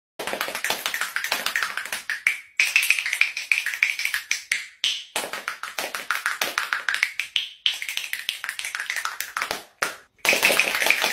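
Fast runs of sharp taps, many per second, in several stretches of two to three seconds broken by short silent gaps; the last run is the loudest.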